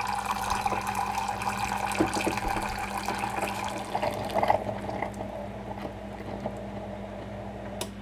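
Keurig coffee maker brewing a vinegar descaling cycle with no K-cup: a thin stream of hot liquid pours from the spout into a ceramic cup, easing off about halfway through and dwindling toward the end. A steady low hum runs underneath, and there is a single sharp click near the end.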